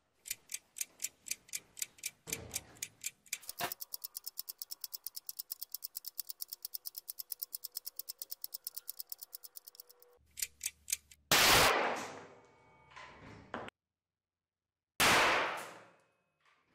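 Steady clock-style ticking that speeds up partway through, then two loud bangs about four seconds apart: a cartridge cooking off as a candle flame heats it.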